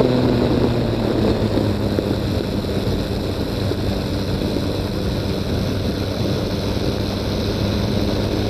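Weight-shift trike's engine and pusher propeller running throttled back on final approach: the engine note drops about a second in and settles to a low steady drone, with wind rushing over the aircraft and microphone.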